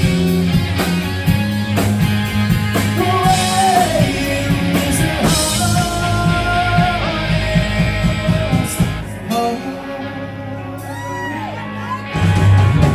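Live rock band playing an instrumental stretch, electric guitar over bass and drums. The bass and drums drop back about two-thirds of the way through while bending guitar notes carry on, then the full band comes back in near the end.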